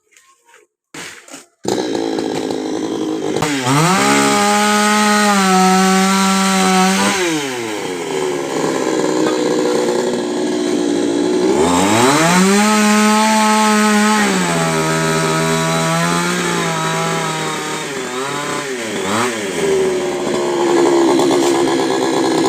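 Two-stroke chainsaw starting up about two seconds in and then revving to full speed twice for a few seconds each time, dropping back to idle in between, with a couple of short throttle blips near the end.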